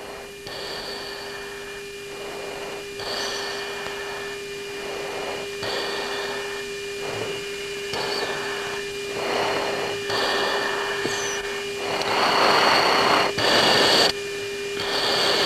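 Cockpit audio from a US Air Force jet's flight videotape: a steady hum on one pitch under rushes of hiss that come and go every one to two seconds, growing louder toward the end.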